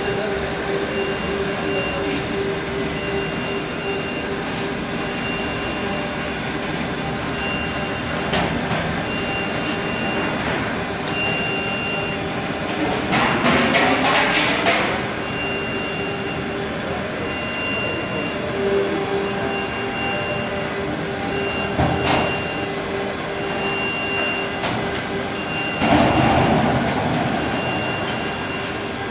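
Checker plate embossing machine running with a steady mechanical hum and a high tone that pulses on and off. About halfway there is a louder noisy burst of a couple of seconds, and later come a sharp knock and another loud burst.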